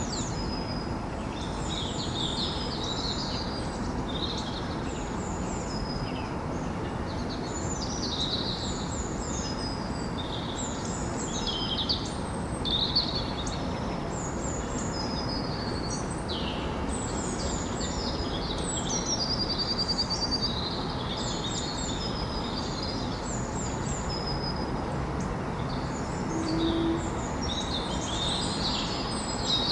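Morning birdsong: several small birds chirping and trilling in quick, overlapping phrases, over a steady low city hum.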